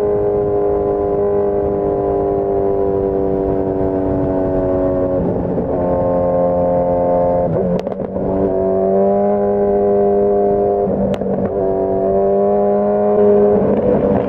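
2015 Suzuki Hayabusa's inline-four running through a Brocks Alien Head full exhaust at a steady cruise, heard from on the bike. The steady note sags slightly and breaks briefly three times, and near the end it grows louder and rougher as the bike enters a tunnel.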